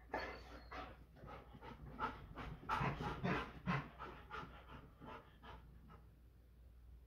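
Labrador retriever panting: quick, even, breathy strokes that stop about six seconds in.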